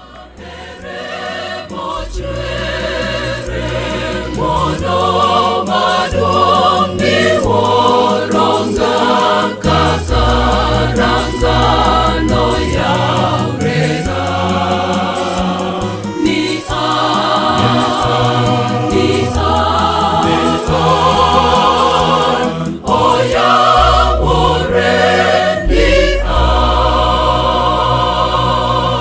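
Choir singing gospel music over a bass line and a steady beat, swelling in during the first couple of seconds.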